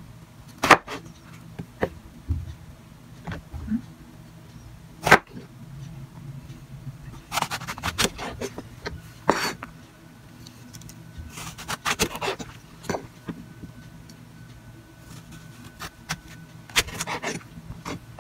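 Chef's knife slicing through eggplant and hitting the cutting board: several sharp knocks a few seconds apart, with short rasping strokes of the blade through the flesh and skin between them.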